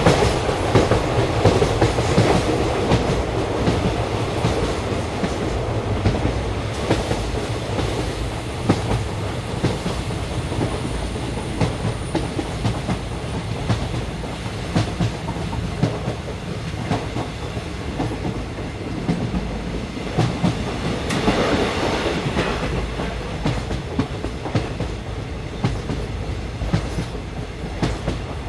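Train running along the track, heard from on board: a steady rumble and hiss with irregular clicks of the wheels over the rails. It swells louder at the start and again about two-thirds of the way through.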